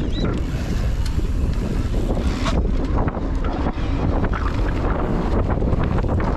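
Wind rushing over the microphone of a camera riding along on a mountain bike, with a steady low rumble and many small knocks and rattles as the bike runs over the dirt trail.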